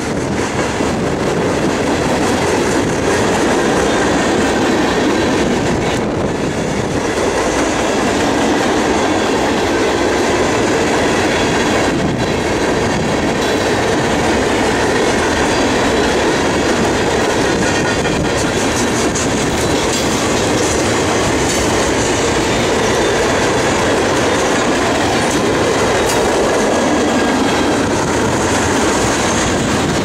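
Freight train passing close by: a steady rumble of covered hopper and tank cars rolling on the rails, with wheels clicking over rail joints.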